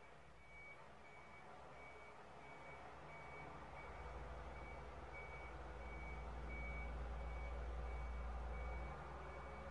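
Skip loader lorry reversing, its reversing alarm giving a steady series of evenly spaced beeps over the rumble of its diesel engine, which grows louder from about the middle and drops back near the end.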